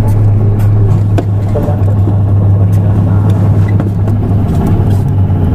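Nissan Diesel PKG-RA274KAN city bus's diesel engine idling steadily with a deep, even drone.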